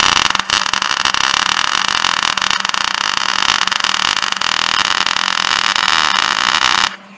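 MIG welder arc crackling and sizzling steadily as a bead is laid on a steel snowmobile ski, with a brief break about half a second in. The arc cuts off suddenly near the end.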